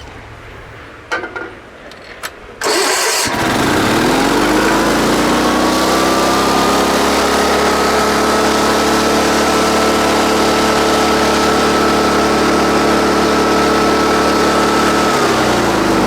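Sears Suburban garden tractor's 16 hp Onan twin-cylinder engine starting: about three seconds in it catches almost at once and runs up to a steady, fairly fast speed. Its pitch drops a little near the end.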